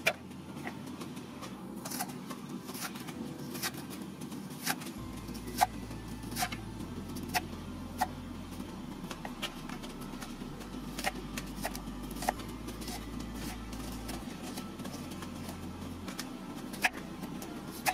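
Kitchen knife slicing through red cabbage and knocking on a wooden chopping board: sharp knocks at an uneven pace of about one or two a second.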